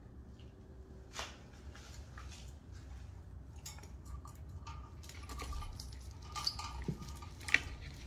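Scattered light clicks and small metallic clinks from a wire birdcage and its hanging toys, with the sharpest click near the end.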